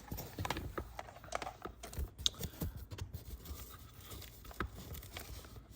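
Soft, irregular rustling and small clicks of hands handling the cables and plastic controller of a power recliner's motor system, under the sofa's fabric.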